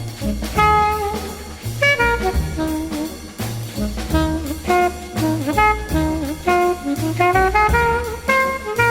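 Background music: jazz with horn melody lines over a bass and drum beat.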